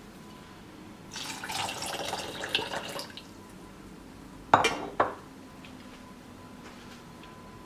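Water running and splashing for about two seconds, then two sharp clinks of dishware half a second apart.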